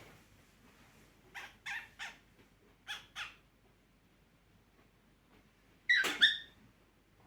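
Cockatiel calling: three short chirps, then two more a second later, and a louder two-part squawk about six seconds in.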